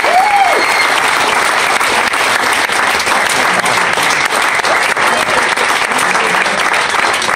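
Crowd applauding steadily, with one voice giving a brief rising-and-falling cheer at the start.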